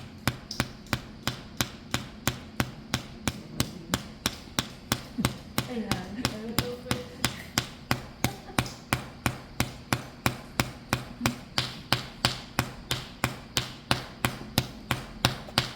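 A hand slapping a person's back over the spine in paida (拍痧) slapping therapy: a steady, even run of sharp, solid-sounding slaps, a little over three a second, kept on one spot to bring out sha.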